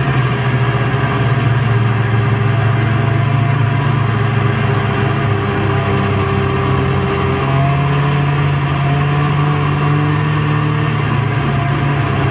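Snowmobile engine running under way, a loud steady drone with small shifts in pitch as the throttle changes.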